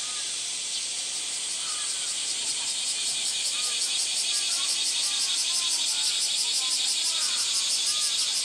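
A chorus of cicadas: a loud, high hiss that swells and turns into a rapid, even pulsing about three seconds in.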